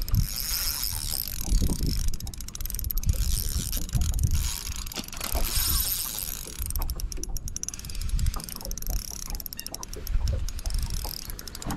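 Fishing reel being cranked to retrieve a lure, a run of fast mechanical ticking, over a steady rumble of wind on the microphone.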